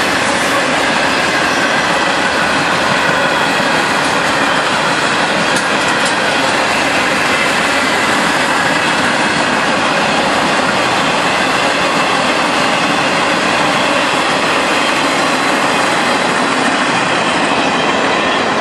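CSX freight cars, tarp-covered open-top cars and boxcars, rolling past close by at speed: a steady loud rumble and clatter of steel wheels on the rails, with faint high wheel squeal over it.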